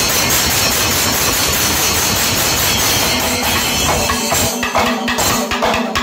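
Panchavadyam temple ensemble playing: dense, fast drumming with clashing ilathalam cymbals filling the sound. About four seconds in, the texture thins into separate drum strokes and a steady held tone comes in over them.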